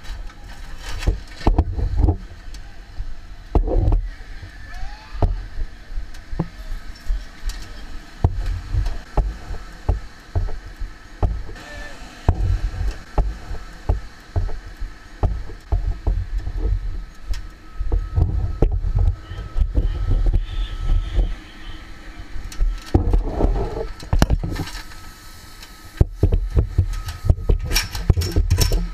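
Footsteps, and a 24-foot extension ladder knocking and rattling as it is carried on the shoulder and then raised into place, with repeated low thumps of movement on the body-worn microphone. A faint steady high tone runs underneath.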